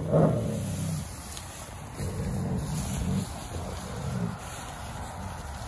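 Wolf dogs making low growls in a few short bouts while nosing through fresh hay.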